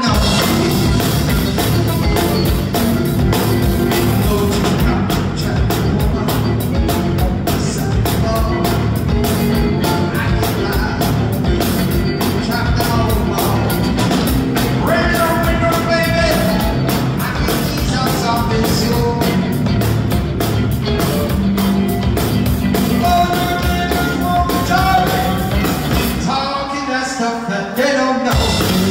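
Live blues-rock trio playing at full volume: electric guitar, bass guitar and a drum kit. Near the end the drums and bass stop for a couple of seconds, leaving a single melodic line, then the whole band comes back in.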